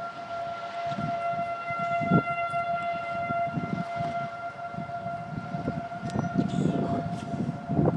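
Federal Signal outdoor warning sirens sounding a steady tone during a scheduled test, with no rise or fall in pitch. Wind rumbles on the microphone underneath.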